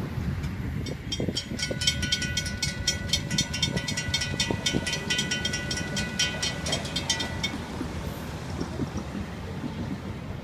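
Freight train of intermodal and freight cars rolling past, a steady rumble throughout. From about a second in to about seven and a half seconds there is also a steady high squeal with rapid metallic ticking, then only the rolling rumble is left.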